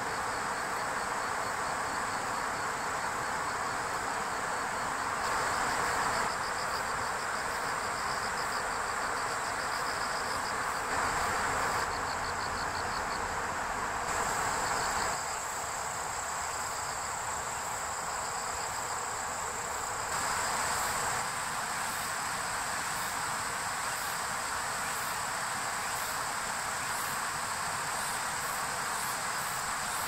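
A chorus of insects trilling: a steady high buzz with rapid pulsed trills, over an even rushing background noise. The mix changes abruptly every few seconds.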